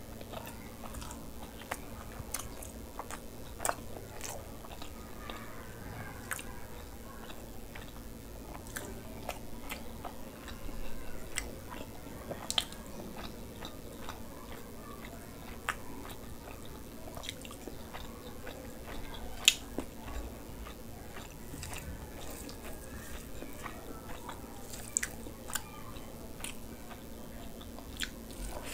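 Close-miked chewing and wet mouth sounds of a person eating rice and curry with the hand, with irregular sharp smacks and clicks throughout; the loudest click comes about two-thirds in. A faint steady hum lies underneath.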